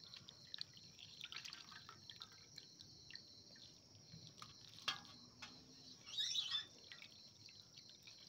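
Faint dripping and small wet splashes from chopped goat tripe being squeezed out by hand in steel bowls while it is washed. A sharp tap comes about five seconds in, and a brief louder rustle follows a second later.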